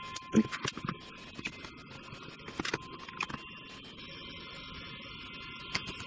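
Plastic balance-lead plugs being pressed into the balance ports of an aluminium-cased parallel charging adapter: a series of light clicks and small knocks of handling, the sharpest about half a second in.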